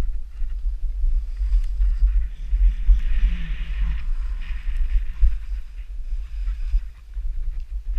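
Wind buffeting a helmet-mounted action camera's microphone during a downhill ski run, a steady low rumble that rises and falls. About three seconds in, a hiss of edges scraping across the snow joins it for a second or so.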